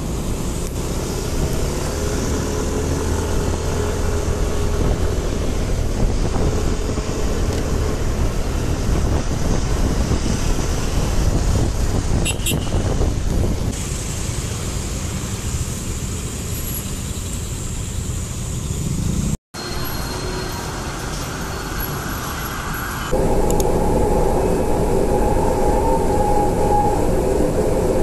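Riding pillion on a motorcycle taxi in city traffic: wind on the microphone over the motorcycle's engine and the surrounding cars. After a sudden cut about two-thirds of the way through, a metro train runs, heard from inside the carriage, with a steady hum that gets louder for the last few seconds.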